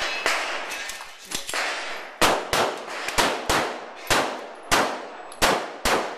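A string of semi-automatic pistol shots, about a dozen, many fired in quick pairs about a third of a second apart, each sharp crack followed by a brief ringing echo.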